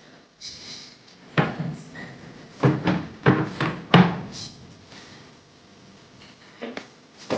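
A run of sharp household knocks and thuds: four close together in the middle, and a lighter one near the end.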